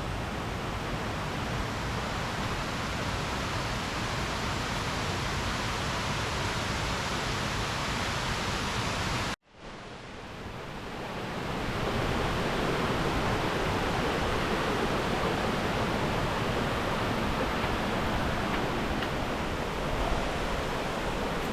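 Steady rush of falling water from a waterfall and its stream. It cuts out for a moment about nine seconds in, then comes back quieter and swells up again.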